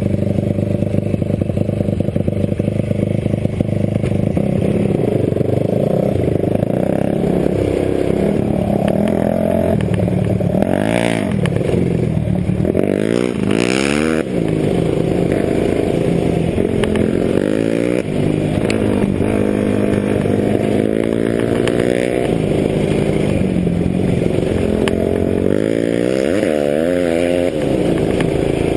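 Dirt bike engine heard from on board, running throughout and revving up and down again and again as the bike rides a dirt trail. There are two brief rushes of noise about 11 and 14 seconds in.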